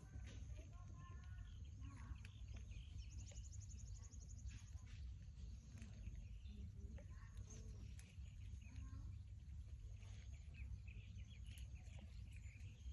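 Faint small-bird chirps scattered over a low steady rumble of background noise, with a quick high trill about three seconds in.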